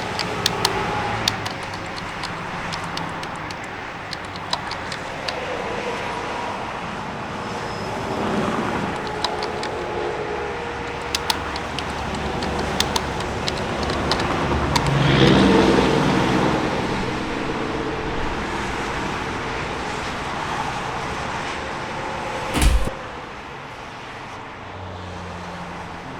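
Interstate highway traffic: a steady rush of cars and trucks, with passing vehicles swelling up, loudest about halfway through, and scattered sharp ticks. Near the end comes a single short heavy thump, after which the traffic is a little quieter.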